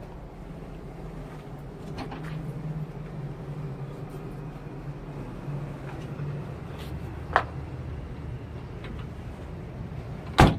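Diesel engine of a Shantui SR road roller running steadily at a low, even pitch, with a few light clicks and a sharp knock near the end.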